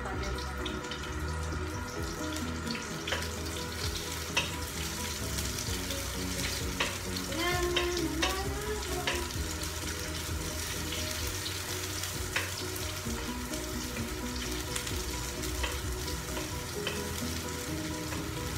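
Chopped onion and garlic sizzling in hot oil in a wok. A spatula stirs and knocks against the pan now and then.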